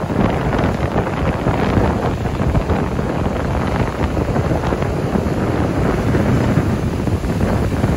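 Strong wind buffeting the microphone, with ocean surf washing in underneath.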